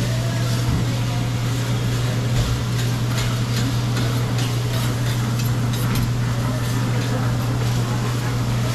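Metal spatula scraping and clicking against a hot griddle as food is worked, over a steady low hum.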